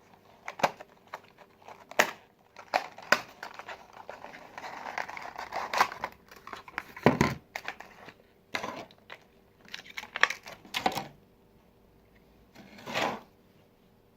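Plastic fidget cube being handled: scattered sharp clicks and knocks, with a longer stretch of rustling from about four to six seconds in.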